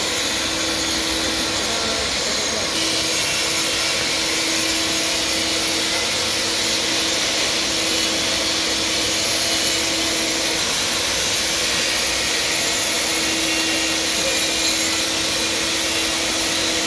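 Angle grinder with a diamond cup wheel grinding the surface of a concrete wall, its shroud's vacuum dust extractor running. The two make a loud, steady whine at an even pitch.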